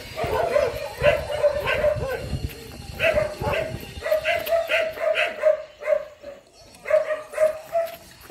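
A dog barking over and over in short, uneven bursts, with a held whine between the barks.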